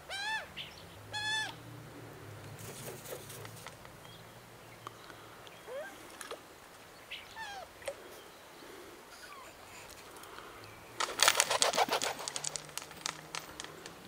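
Australian magpie giving two short, arched, harsh calls about a second apart, then a few faint calls. Near the end comes a loud, rapid flurry of splashing and wing-flapping as it bathes in the bird bath.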